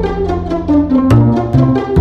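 Instrumental background music with plucked and bowed strings over a steady bass, several short notes a second.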